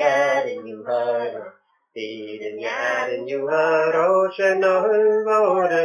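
A man and two boys singing a Nova Scotia Gaelic song together without instruments, phrase after phrase, with a short break for breath about one and a half seconds in.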